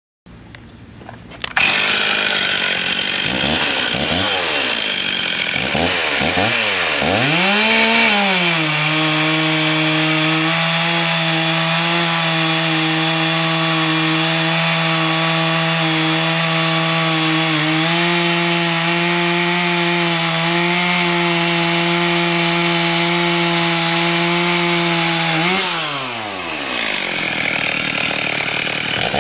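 Stihl MS360 Pro two-stroke chainsaw revved up and down several times, then held at high revs for about sixteen seconds. Near the end it drops back and is revved again.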